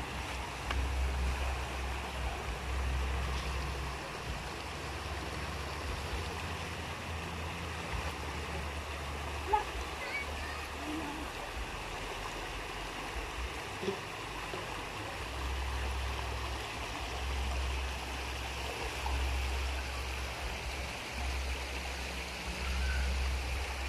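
Creek water running steadily, with a low rumble coming and going underneath and two short knocks about four seconds apart near the middle.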